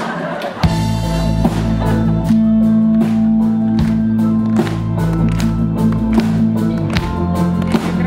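Rock band with a string section (violins and cello) starting a song's intro about half a second in: a steady beat under held bass notes and string chords.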